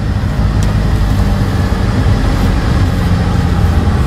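A vehicle's engine and road noise while driving, a steady low drone.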